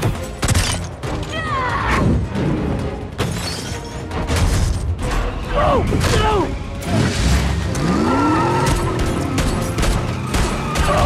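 Action film soundtrack: music mixed with crashes, booms and sweeping sound effects, with many sharp hits and gliding tones.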